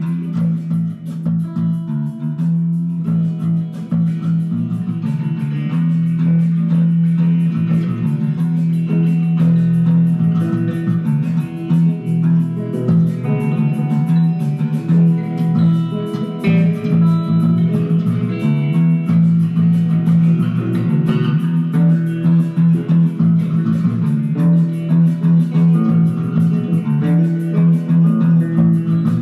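Instrumental jam on electric guitar and electric bass: a steady low drone under changing guitar lines.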